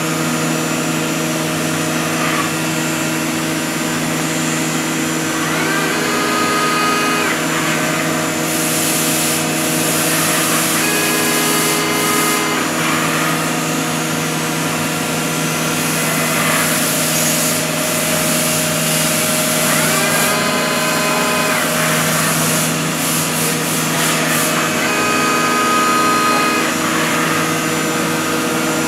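Five-axis CNC milling machine cutting a metal part: a steady machine hum, with a whine that rises and falls about four times, and stretches of high cutting hiss.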